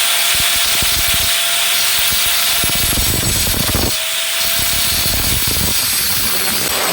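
Power tool cutting through a pipe: a steady motor whine under a loud grinding, sawing hiss. The whine drops out briefly about four seconds in, then comes back.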